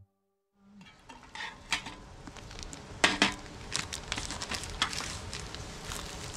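Clatter and knocks of cooking things being set down on an aluminium folding camp table, with the crinkle of a plastic bag of raw chicken wings being handled. The loudest knock comes about three seconds in.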